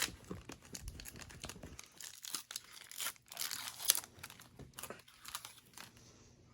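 Foil wrapper of a Pokémon booster pack being handled, crinkling irregularly and tearing, with the sharpest crackle just under four seconds in.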